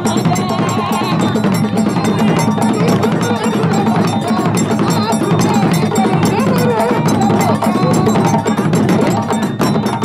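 Live Malian dance drumming: djembes and dundun bass drums play a fast, dense Khassonke rhythm, with a metal bell clanking along.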